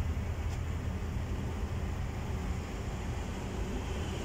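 Steady low rumble of a vehicle engine running, with a faint click about half a second in.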